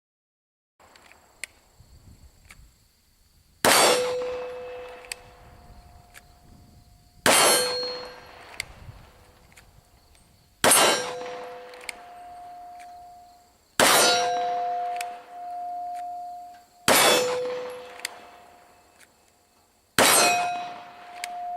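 Six shots from a Glock 17 9mm pistol at a steel gong target, about three seconds apart. Each is a sharp crack followed by the steel plate ringing in two tones that pulse as they fade over a few seconds.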